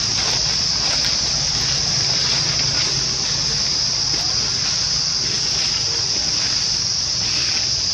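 Steady, high-pitched drone of insects holding one level throughout.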